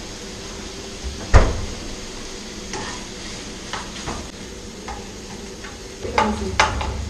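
A metal spoon stirring and clinking in a glass mug of coffee, with a sharp knock on the table about a second in and a cluster of louder clinks near the end.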